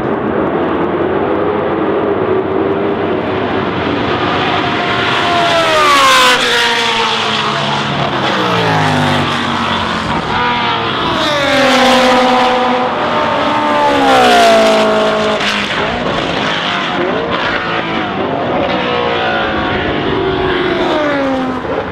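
Racing cars passing at speed, engines revving high, the pitch falling as each goes by. The loudest passes come about six, twelve and fourteen seconds in.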